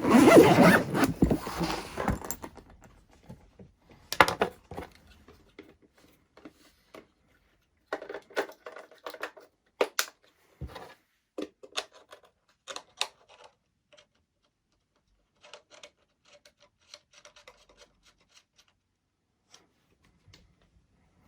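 Handling noises while a small 433 MHz antenna is fetched and fitted to an RC transmitter's radio link: a loud rustle for the first two seconds, then scattered clicks and taps of small hard parts, with quiet gaps between.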